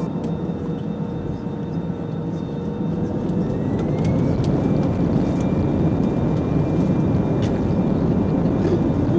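Jet airliner engines running with a steady rumble that swells about three to four seconds in, as a faint whine rises in pitch and then holds.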